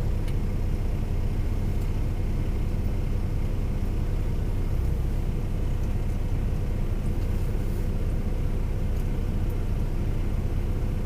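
Steady low hum inside a lorry cab, even throughout, with no distinct events.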